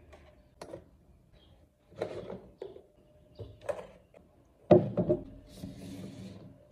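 Desk items being set down on a desktop one after another: a series of light knocks and clunks, the loudest cluster about three-quarters of the way through, followed by a soft rustling as plastic crates are moved into place.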